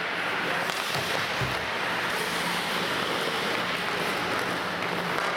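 Ice hockey play in an indoor rink: skate blades scraping and carving the ice, with the odd stick knock, over a steady hiss of the hall.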